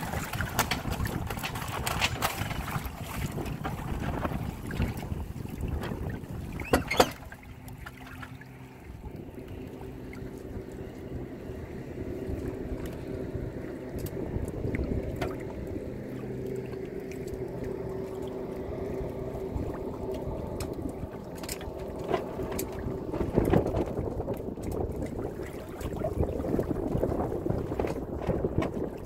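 Water rushing and splashing along the hull of a Windrider 17 trimaran under way, with wind buffeting the microphone. A sharp knock comes about seven seconds in. After it a steady, even hum runs for about fifteen seconds, and then the splashing water and wind noise come back.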